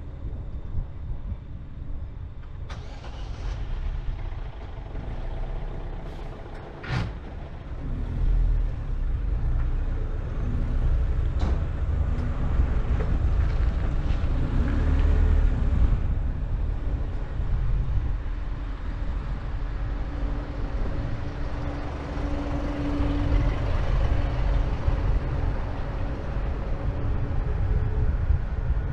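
Car engine running at low speed with a steady low rumble as the car pulls out and rolls slowly forward. A sharp click comes about seven seconds in, and a fainter one a few seconds later.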